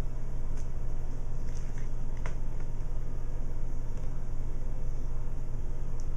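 A steady low hum, with a few small clicks and light rustling as hands fasten the snaps of a Santa suit and handle its fabric, the clearest click a little over two seconds in.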